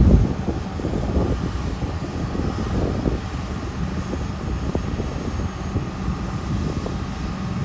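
Freight train of empty covered hoppers rolling past, a steady low rumble of wheels on the rails with a few faint knocks.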